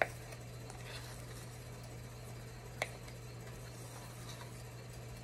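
A table knife clicking against a measuring cup as peanut butter is scraped out over a pot: a few sharp clicks, the loudest right at the start and another about three seconds in, over a steady low hum.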